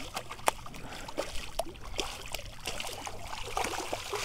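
Water splashing as a hooked stingray thrashes at the surface, with many short sharp slaps and splashes. Near the end a landing net dips into the water.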